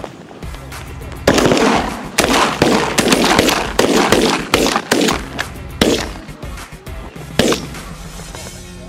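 Several shotguns firing a rapid volley of a dozen or so shots over about six seconds, the later shots more spaced out, with the last one alone near the end. Background music plays underneath.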